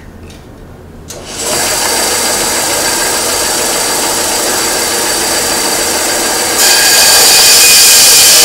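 Bench band saw switched on about a second in, its motor coming up to speed and then running steadily with a whine. About six and a half seconds in it grows louder and harsher as the blade cuts into the wood at a 45-degree bevel.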